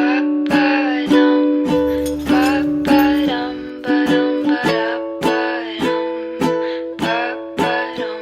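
Background music: the intro of an acoustic pop song, led by ukulele strums at a steady beat.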